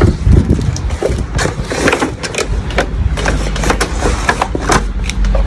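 Cardboard box and packaging being handled and opened: irregular rustling, scraping and light knocks.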